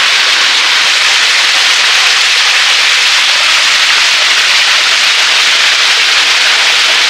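Waterfall water rushing and splashing into a rock pool: a loud, steady hiss.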